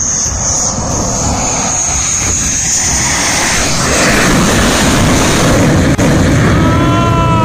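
Naval Tejas fighter jet's turbofan engine running loud as the jet rolls down the runway, with a high whine over it for the first few seconds; the engine noise gets louder about four seconds in. Near the end a falling, siren-like tone begins.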